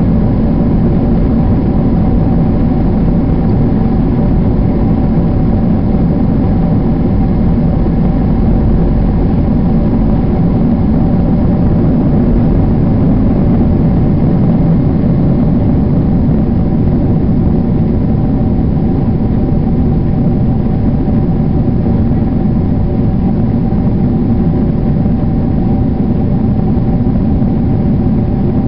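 Boeing 767 turbofan engines at takeoff power heard from inside the cabin: a loud, steady roar with a few steady whining fan tones on top, through the takeoff roll, lift-off and initial climb.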